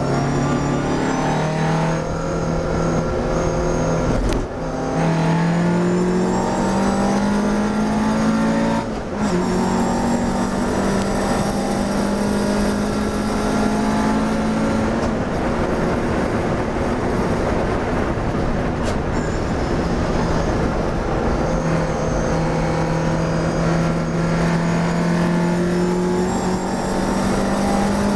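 Classic racing car's engine heard from inside the cockpit at full throttle, its pitch climbing as the car accelerates. Two quick upshifts break it briefly about four and a half and nine seconds in, and the engine climbs steadily again near the end.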